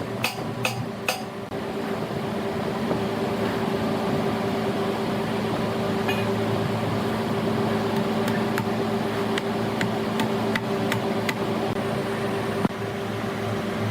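A large wood lathe runs with a steady hum. There are several sharp knocks in the first second or so and scattered ticks after that.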